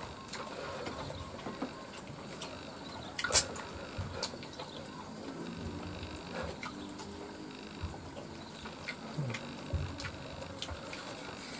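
People eating with their hands: chewing, lip smacks and small clicks of fingers and food against plastic plates, with one sharper click about three seconds in.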